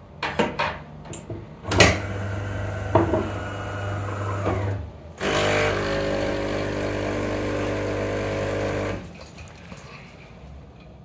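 Bean-to-cup espresso machine making a coffee: a few clicks, then the built-in grinder running for about three seconds, a short pause, and the pump buzzing steadily for about four seconds as the coffee is pushed through, stopping about nine seconds in.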